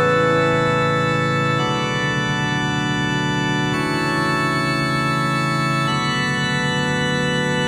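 Background music: held chords that change about every two seconds.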